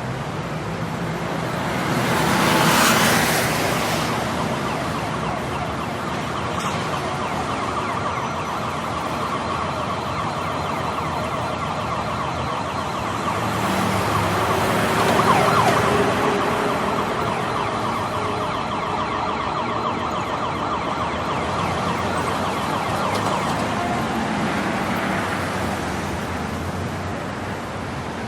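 Road traffic ambience with an emergency vehicle siren sounding. The roar swells loudly twice, about 3 seconds and 15 seconds in.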